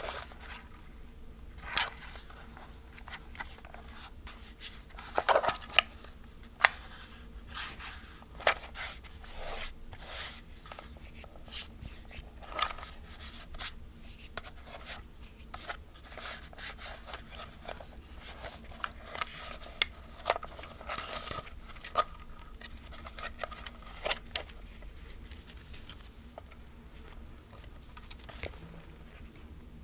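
Fingers handling a plastic film camera: irregular small clicks, taps and rubbing scrapes on its hollow plastic body, with a cluster of louder clicks about five to seven seconds in.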